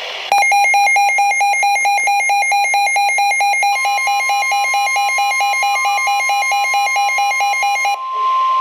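Rapid, shrill electronic alarm beeping at several beeps a second. Partway through, the steady NOAA Weather Radio warning alarm tone joins it and keeps sounding after the beeping stops near the end. It is the alert signal that comes before a broadcast flood warning.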